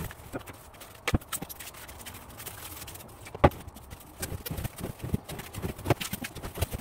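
Stretch film crackling and rustling as it is pulled around a box and smoothed flat by hand, with a few sharp knocks, the loudest about three and a half seconds in.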